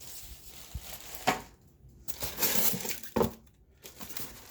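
Monitor stand parts being handled and set down out of the box: two sharp knocks of hard parts, about a second in and again near three seconds, with packaging rustling between them.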